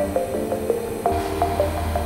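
Background music: a quick melody of short notes, about four or five a second, over a low steady drone.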